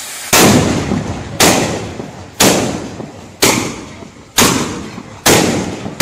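Daytime ground firework tubes set off in a row, one loud bang about every second, six in all. Each bang is followed by a fading rush of noise before the next.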